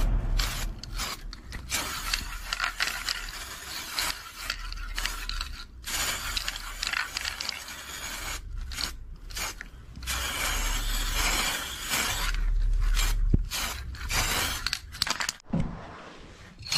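Aerosol spray-paint can hissing in repeated bursts with short breaks between them. It is sprayed in passes over cut metal letters.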